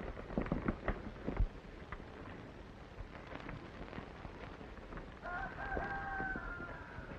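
Horses' hooves clatter in the first second or so over old-film hiss. About five seconds in, a long held call with a slightly falling pitch sounds for about two seconds.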